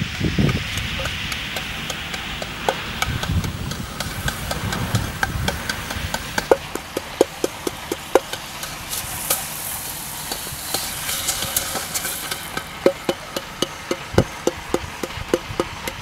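Giant block dominoes toppling one into the next in a chain, a regular run of knocks about three a second. At first there is wind noise on the microphone.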